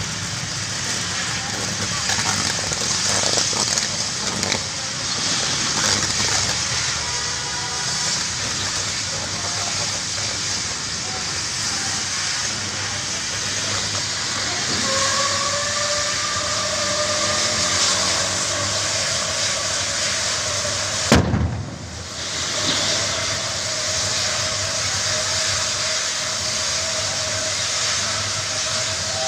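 Gas-fed fire burning with a steady loud hiss, with a whistling tone joining about halfway through and holding to the end. A single sudden bang cuts through it a few seconds after the whistle starts.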